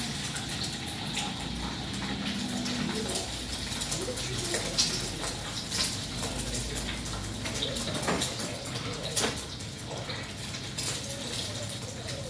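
Kitchen clatter: metal utensils clinking and scraping against cookware, with irregular sharp clicks over a steady hiss.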